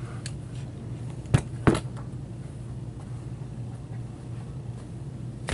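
Steady low hum of room noise, with two short sharp clicks about a third of a second apart, a little over a second in.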